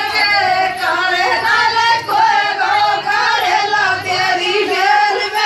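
Voices singing a Rajasthani Gurjar rasiya folk song in a high register, the melody gliding and bending without a break.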